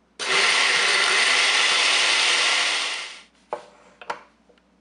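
Countertop blender running for about three seconds, blending ice with pisco, syrup, lime juice and egg white into a froth, then cutting off. Two short knocks follow.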